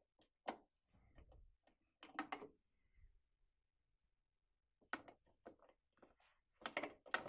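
Faint, scattered clicks and knocks from handling the parts around a motorcycle's rear footpeg bracket, coming a few at a time with the loudest group near the end.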